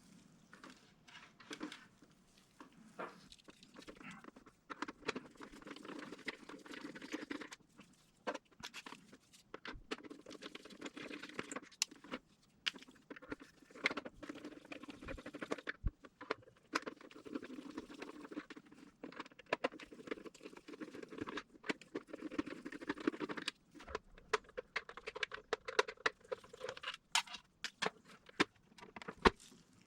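Irregular clicks, taps and light rattles of small parts being handled and worked loose while the Camtono prop is taken apart.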